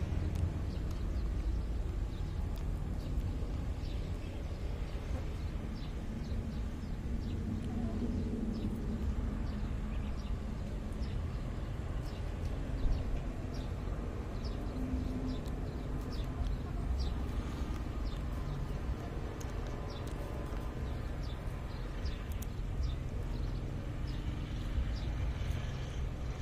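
Outdoor close-up recording: a steady low rumble of wind on the microphone, with small scattered clicks from a baby monkey chewing leafy stems right by the phone.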